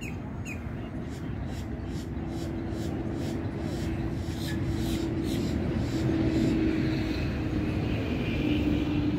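A steady engine drone grows louder through the first half and then holds, over a low rumble.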